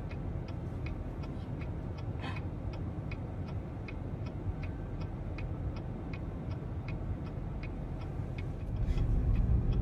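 A car's indicator flasher clicking steadily, about three clicks a second, heard inside the cabin over a low engine and road rumble that grows louder near the end.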